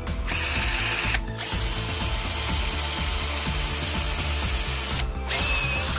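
Tool n Tool GTC-HD18V 18 V cordless hammer drill running with an empty chuck, a steady motor sound with a rapid ratcheting rattle. It pauses briefly about a second in and again near the end.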